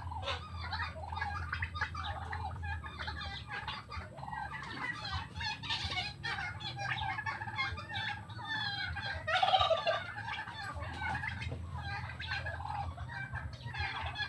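Domestic turkeys calling continuously, a dense run of clucking and chattering calls, with a louder burst of calls about two-thirds of the way through.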